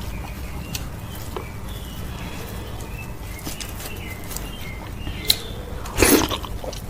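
Close-miked eating sounds from a person eating okro soup with cow foot and fufu: sparse wet mouth clicks over a steady low hum, with a louder wet mouth sound about six seconds in.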